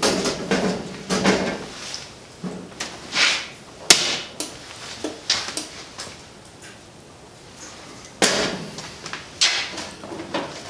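Handling noises at a metal breaker panel: irregular scraping, rattling and rustling, with one sharp click about four seconds in.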